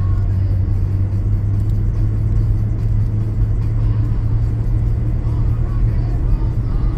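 Steady low drone of a car driving on a wet road: engine and tyre noise with no clear changes.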